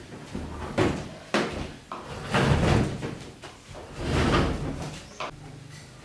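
The metal cabinet of an Aqua Inverter 10 kg top-loading washing machine being rocked and dragged across a concrete floor: three knocks in the first two seconds, then two longer scrapes, and a short click near the end.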